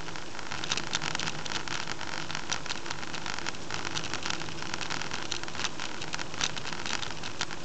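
Car driving on a city road, heard from inside the cabin through a dashcam microphone: a steady rush of road and engine noise with frequent, irregular small clicks.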